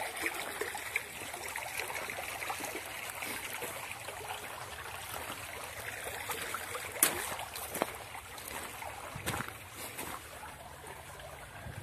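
Shallow forest stream trickling steadily, with footsteps on the leafy dirt trail and a few sharp clicks, the loudest about seven seconds in.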